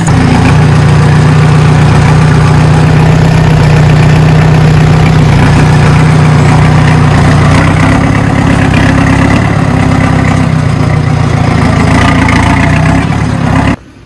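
Diesel farm tractor engine running steadily under way, heard up close from the driver's seat; it cuts off suddenly near the end.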